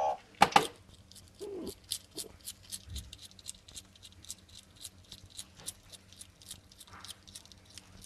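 Pets and a meerkat at play: a short call and two sharp knocks, another brief call, then a long run of quick light clicks or patters, about four a second.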